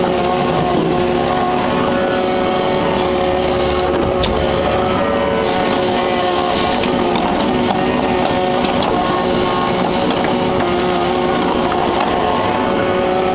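Kubota KX61-3 mini excavator's three-cylinder diesel running at a steady high throttle with a constant whine, with a few faint knocks over it.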